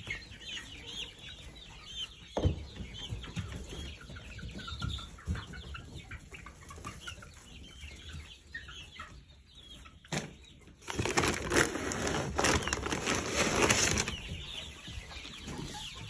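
A flock of chickens clucking and chirping softly. About eleven seconds in, a loud rustling, rattling noise takes over for about three seconds.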